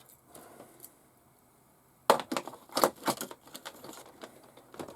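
Parts of a model steam engine kit being handled: plastic packaging crinkling and small parts clicking. It is quiet at first, and from about two seconds in comes a quick run of sharp clicks and rustles.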